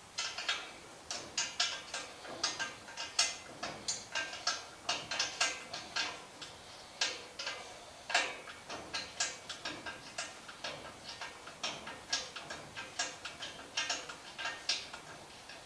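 Hand ratchet wrench clicking as a bolt is turned, in short uneven runs of quick clicks with brief pauses between strokes.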